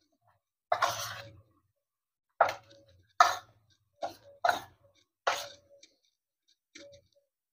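Metal spoon scraping and knocking against a stainless steel pot while mashing a thick grated-cabbage and flour mixture. About seven separate strokes, irregularly spaced, each sharp at the start and quickly fading.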